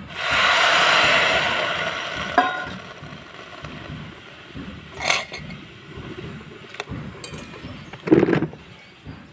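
Strained pectin water poured from a steel bowl into a hot karahi of roselle calyces, hissing and splashing for about two seconds before fading. After that come a few scrapes and knocks of a spatula stirring the calyces in the pan.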